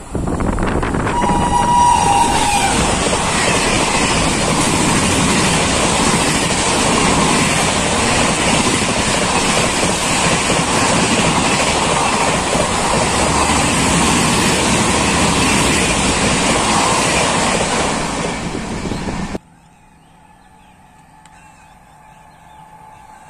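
Indian Railways express train running through a station at speed. A short two-tone horn blast sounds about a second in, followed by a loud, steady rush of wheels and coaches passing close by. The rush cuts off suddenly about 19 seconds in, leaving only faint background sound.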